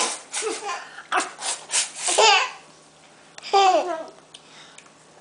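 A toddler laughing in a run of short bursts for the first two and a half seconds, then one more falling vocal sound about three and a half seconds in.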